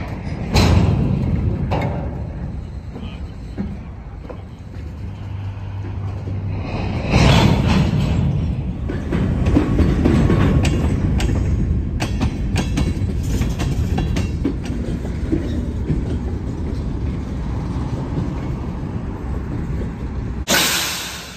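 Freight train of covered hopper cars rolling past at close range: a steady low rumble of steel wheels on rail, with scattered clicks and clacks as the wheels pass over the track.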